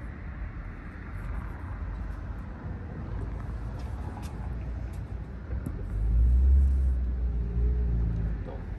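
Low, steady rumble of street traffic, swelling about six seconds in as a vehicle passes close by, then easing off.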